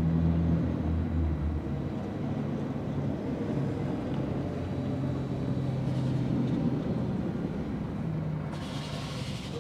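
Steady low hum of an idling diesel truck engine, with a brief hiss about three-quarters of a second from the end.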